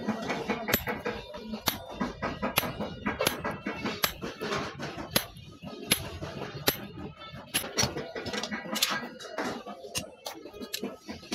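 Irregular sharp metallic taps and clinks, sometimes several a second, from hand work on steel.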